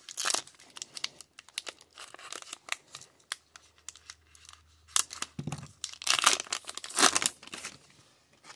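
Wrapper of a Topps Gypsy Queen baseball card pack being torn open by hand and crinkled: a string of crackles, with louder rips about half a second in, at five seconds and again around six to seven seconds.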